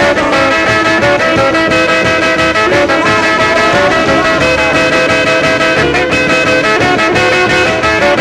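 Instrumental break of an upbeat rockabilly song: guitar and horns over a steady beat, with no singing.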